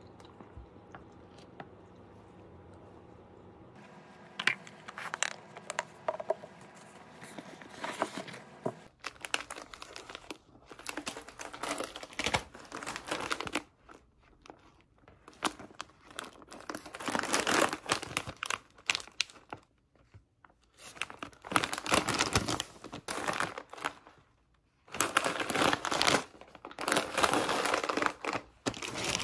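Crinkly plastic snack bags being picked up, handled and set down on a table: repeated bursts of rustling and crinkling with short pauses between. The first few seconds hold only a faint steady hum.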